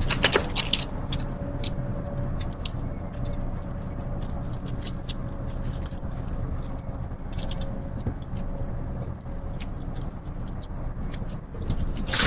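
Steady low background rumble with many light, irregular clicks and taps scattered through it, and a faint steady hum.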